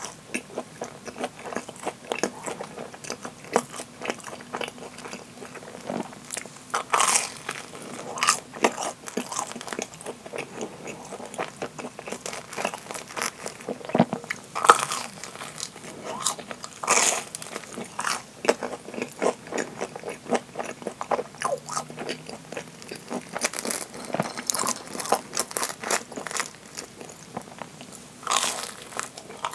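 Bites and chewing of deep-fried Japanese curry bread (karē pan), the crumb-coated crust crunching with each bite, with louder crunches every few seconds.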